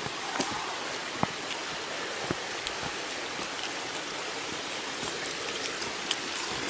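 Mountain stream rushing over rocks, a steady even hiss of running water, with a few sharp ticks in the first couple of seconds.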